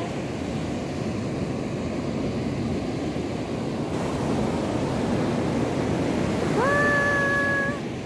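Ocean surf breaking and washing up a sandy beach: a steady rushing noise. Near the end a single pitched call, about a second long, rises briefly and then holds steady.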